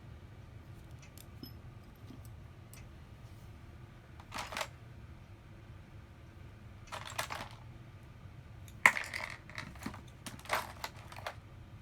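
Small tools and phone parts being handled and set down on a repair bench: several short clinks and rattles, the sharpest one about nine seconds in.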